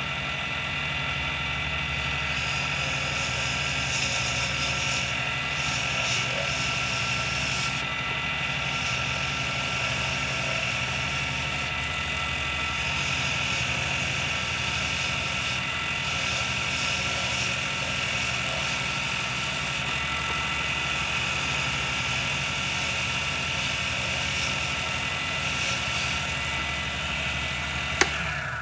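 Pen-turning lathe running steadily with a resin pen blank spinning on it, a hum with a high hiss that comes and goes; it stops near the end.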